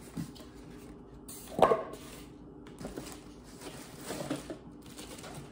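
Cardboard box and its packing being handled as a hand reaches in and shifts the contents: scattered short rustles and knocks, the loudest about a second and a half in.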